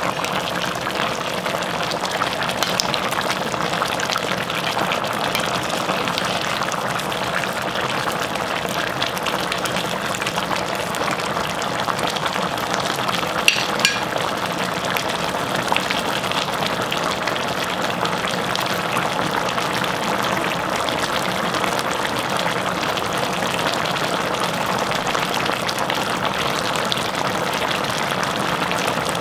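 Pot of soy-braised chicken with glass noodles boiling steadily in its thick soy sauce, a continuous bubbling hiss, with one brief click about halfway through.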